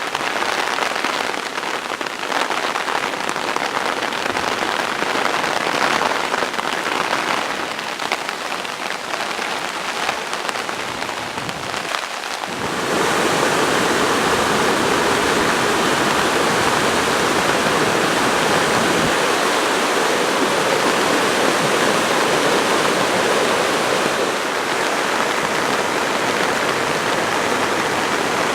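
Rushing water of a river swollen by typhoon rain, a steady noisy rush that grows fuller and louder about twelve seconds in.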